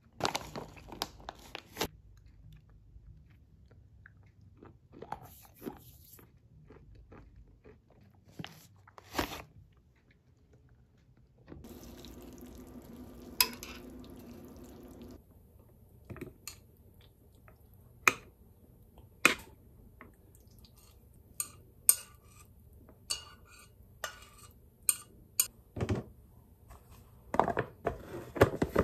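Kitchen sounds in a run of short cuts: mixed nuts crunched and handled in a plastic container, with scattered clicks. Then spaghetti in tomato sauce sizzles in a frying pan for about three and a half seconds while it is stirred with metal chopsticks. After that comes a string of sharp clicks and knocks, with a plastic lunch container handled on the counter near the end.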